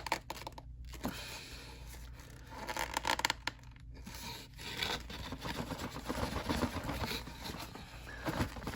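Styrofoam packing scraping and rubbing against the cardboard box in irregular strokes as it is worked loose, with scattered small crackles.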